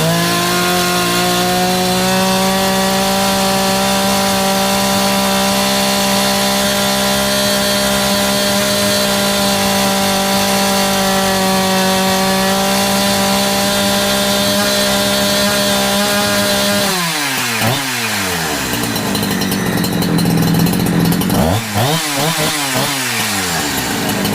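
Holzfforma G372XP two-stroke chainsaw engine held at full throttle for about seventeen seconds while its carburettor is tuned, the pitch sagging slightly midway. It then drops back to idle, is blipped once briefly, and settles to a steady idle.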